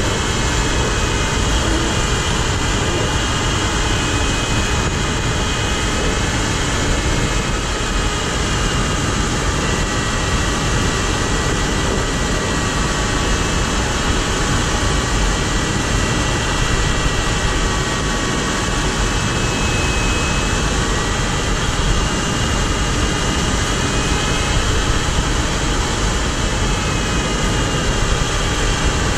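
Steady rush of airflow over an ultralight sailplane's canopy, heard inside the cockpit in gliding flight, with a few faint thin tones that drift slightly in pitch.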